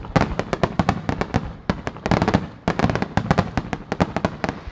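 Japanese starmine fireworks barrage: aerial shells bursting in rapid succession, many sharp bangs a second overlapping, each with a short echoing tail.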